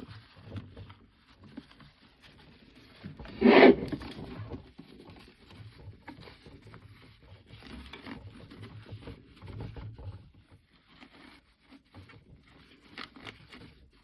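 Hand wiping and rubbing on the plastic housing of an Ecopro disc repair machine: intermittent scraping and rubbing, with one louder scuff or bump about three and a half seconds in.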